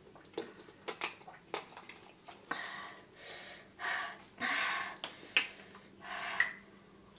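A woman breathing hard in and out through her open mouth to cool the burn of very spicy ramen: about five loud, airy breaths, with a few short clicks before them.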